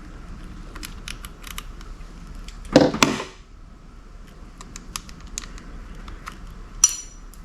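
Hands working on outboard motor wiring and connectors: scattered small clicks and handling noises, a louder rustle and knock about three seconds in, and a short metallic clink near the end.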